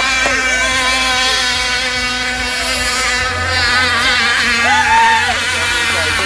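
Several radio-controlled racing catamarans' 26 cc two-stroke petrol engines running flat out, a dense high-pitched buzz whose pitch wavers and bends as the boats race around the course.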